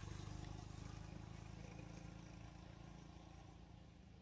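Faint low hum of a distant engine, slowly fading away.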